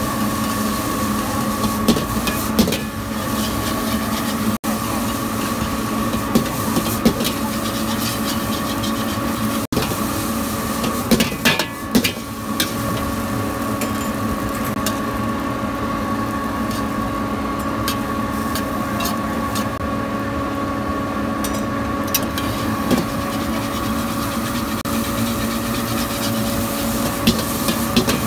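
Metal spatula scraping and clacking against a steel wok as fried rice is stir-fried, with a quick cluster of sharp clacks about halfway through. A steady hum runs beneath it.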